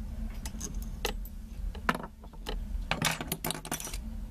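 Light clicks and rattles of small fly-tying tools handled at the vise as the thread is whip-finished and cut off at the fly's head: a few scattered clicks, the sharpest about two seconds in, then a quick cluster of them near the end.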